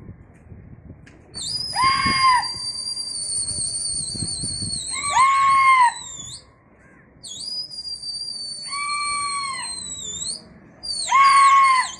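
Pigeon flyers calling their flock: four shrill cries, each about a second long and rising then falling, with long high whistles held for several seconds between them.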